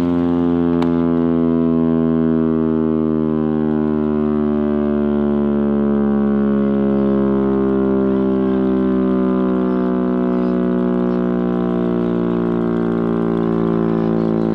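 Chrysler air raid siren (Chrysler Bell Victory Siren, driven by a Chrysler Hemi V8) sounding a loud, deep, steady tone over the low rumble of its engine, the pitch slowly falling.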